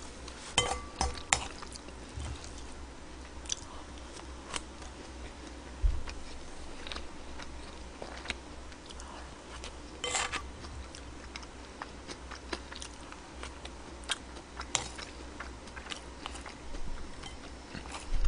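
Close-miked eating: chewing pork-belly and bean-sprout rice, with scattered sharp clicks and scrapes of a spoon and chopsticks against the bowl, over a steady low hum.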